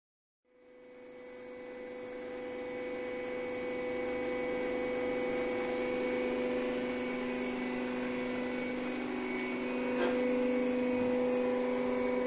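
Hydraulic power unit of a 2002 Durma HAP 2580 CNC press brake, its 7.5 kW electric motor and pump running with the machine idle: a steady hum with a whine in it. It fades in over the first couple of seconds, with a light click about ten seconds in.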